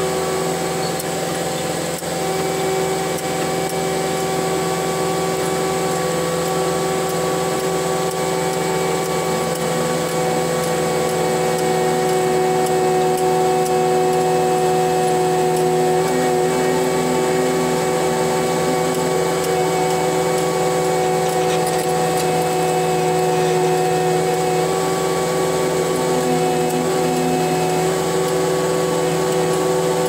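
Cat 289D3 compact track loader's diesel engine running steadily under working load, heard from inside the closed cab, with a steady whine over the engine drone. It grows slightly louder about ten seconds in.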